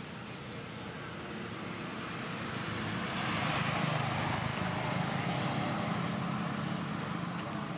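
A motor vehicle passing by: its engine hum and road noise swell steadily, peak about halfway through, then begin to fade.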